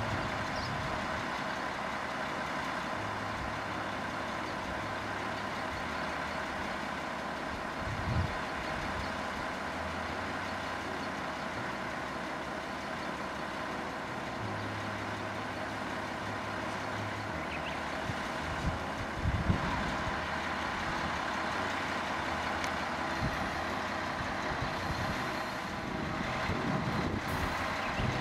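Steam locomotive standing with its machinery running: a steady mechanical hum and whine with several held tones, and a low hum that comes and goes. A few short low thumps, about eight seconds in and again near twenty seconds, are wind on the microphone.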